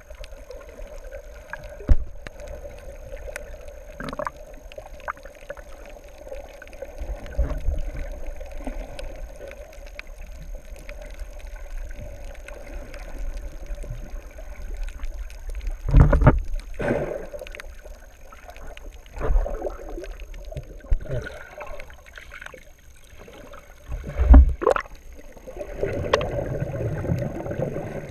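Muffled underwater sound from a camera held below the surface: water movement with a steady hum and a few sharp, loud bumps.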